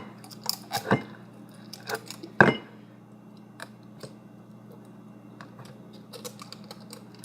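Scattered clicks and crackles of plastic being tugged and handled, as someone tries to pull the seal off a new contact lens solution bottle; the sharpest clicks come in the first three seconds, then sparser ones. A low steady hum runs underneath.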